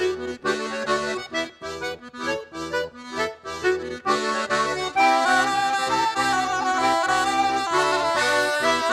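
Accordion playing a Breton dance tune: short bouncing chords with gaps between them, then about four seconds in the music turns louder and fuller into a continuous melody.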